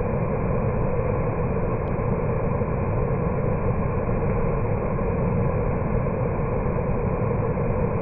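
Waterfall pouring over rock ledges into a pool: a steady, even rush of falling water.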